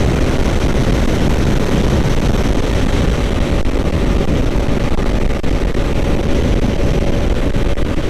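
Yamaha MT-07 parallel-twin motorcycle being ridden hard at speed in second gear. Steady heavy wind noise over the engine, with a faint steady engine tone in the second half.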